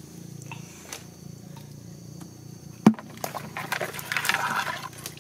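A single sharp knock on a plastic bucket about three seconds in, followed by a couple of seconds of scraping and rustling as the bucket is handled, over a low steady hum.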